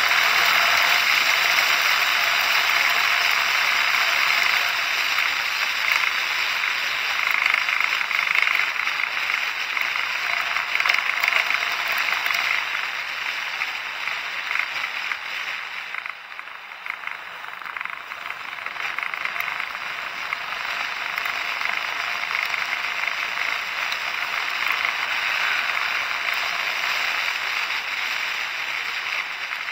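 Steady rushing wind and road noise picked up by an action camera riding on a moving vehicle, with no clear engine note. It dips briefly about halfway through.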